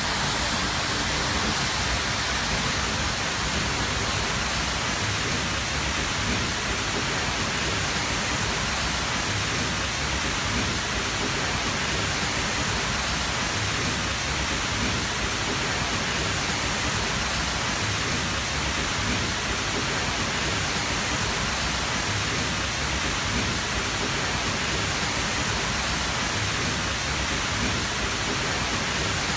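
Tall natural waterfall: a steady, dense rush of falling water with no breaks.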